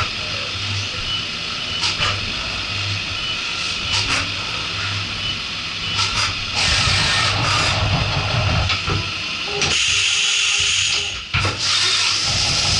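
Haas VF4 CNC vertical machining centre running a cycle. A steady low machine hum with a few sharp clicks gives way, about halfway through, to a louder hiss of flood coolant spraying over the work.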